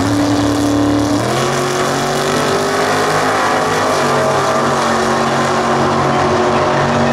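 Two drag-racing cars, a first-generation Camaro and a Fox-body Mustang, launching and running down the strip at full throttle, their engines loud and steady. The engine notes change pitch abruptly about a second in and again around four and a half seconds in.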